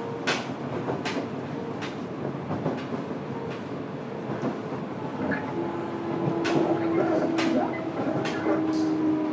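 Fukuoka City Subway 1000N-series electric train running, heard aboard the car: a steady rumble with sharp clicks of the wheels over rail joints. A steady motor tone comes in after about five seconds as the sound grows a little louder.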